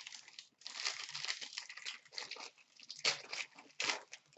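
Plastic wrapper of a 15-16 Upper Deck SP Game Used hockey card pack crinkling and tearing as it is ripped open by hand, in a run of uneven rustling bursts, the sharpest ones near the end.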